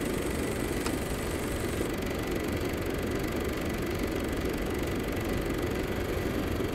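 Old film projector running: a steady mechanical whirring rumble.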